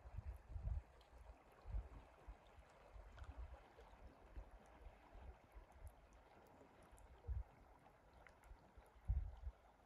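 Faint rush of a flowing river, with low wind buffets on the microphone now and then, the strongest near the end.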